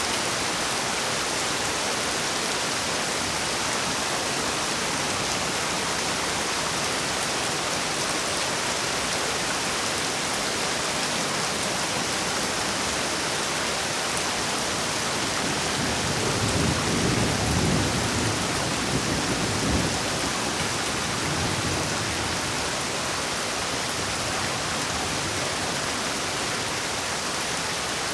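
Heavy rain falling steadily, with a roll of thunder rumbling through it for about five seconds past the middle.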